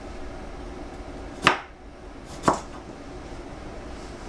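Two sharp knocks of a knife against a chopping board, about a second apart, as ginger is being skinned.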